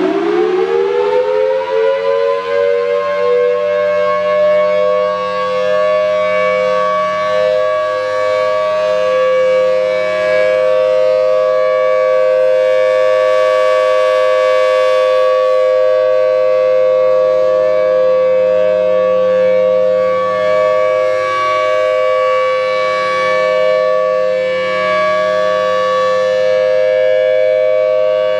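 Federal Signal Thunderbolt 1000-series warning siren with a 5/6-port rotor sounding its steady Alert signal. It finishes winding up, rising in pitch over the first few seconds, then holds a steady two-note chord.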